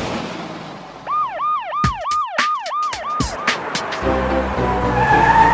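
Cartoon police siren sound effect: a quick yelping siren of about eight rising-and-falling whoops, each roughly a third of a second, with a few sharp whooshes over it. Children's song music starts about four seconds in.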